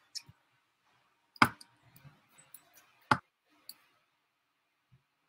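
Computer mouse clicks: two loud, sharp clicks about a second and a half apart with a fainter one just before them and a few soft ticks in between, as a finished slideshow is clicked shut.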